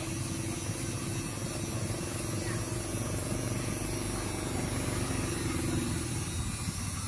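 A small engine running steadily, an even mechanical drone.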